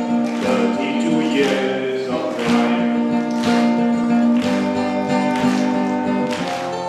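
A man singing a folk ballad live, with held notes, to an acoustic guitar strummed about once a second.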